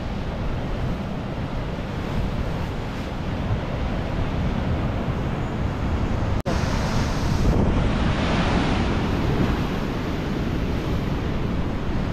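Sea surf breaking and washing against the rocks at the cliff foot, mixed with wind buffeting the microphone. A louder surge of breaking water comes about eight seconds in, just after a momentary dropout in the sound.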